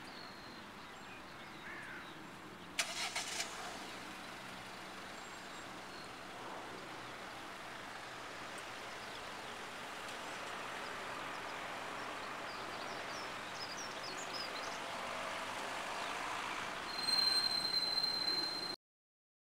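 Steady hiss of road traffic, slowly growing louder. A short burst of knocks comes about three seconds in. Near the end it gets louder, with a steady high whine, then cuts off abruptly.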